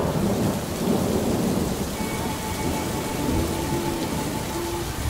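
Steady rain-and-thunder noise: an even hiss over a low rumble, with a few faint held tones coming in about two seconds in.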